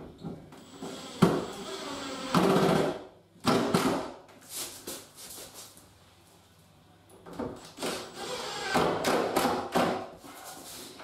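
Cordless drill-driver driving screws in short bursts: one run about a second in, a brief one near the middle, and a longer run later, with quieter handling knocks in between.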